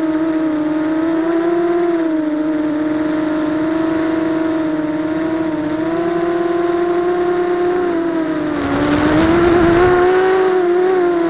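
Brushless motors and propellers of a ZMR250 racing quadcopter whining, heard through the onboard keychain camera's microphone; the pitch wavers a little up and down with throttle. About nine seconds in, a rush of air noise swells over the whine for about two seconds.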